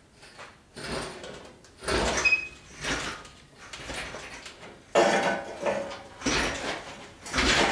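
Irregular metal clanks and scraping creaks as a transmission and transfer case hanging from a hoist chain is shifted over the truck frame, in several separate bursts with a brief high squeak about two seconds in.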